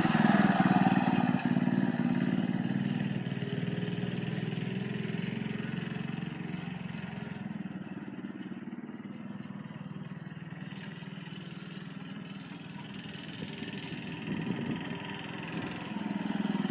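Homemade minibike's small engine running as the bike rides off; it gets quieter over the first several seconds, stays distant, then grows louder again near the end as it comes back closer.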